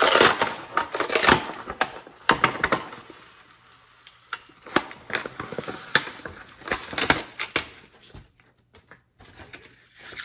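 Stiffened cheesecloth crackling and crinkling as hands work a deflated rubber balloon out from inside the hardened fabric. The small crackles and clicks come in irregular runs, busiest in the first few seconds and dying away near the end.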